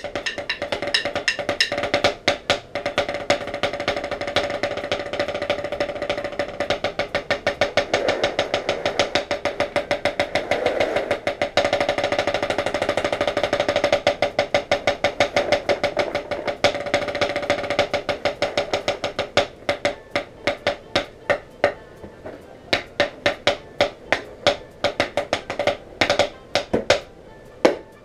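Drumsticks striking a drum rapidly in snare-style rudiments and rolls, each stroke with a short ringing pitch. For most of the stretch the strokes run densely; in the last third they thin out into separate, spaced hits with short gaps.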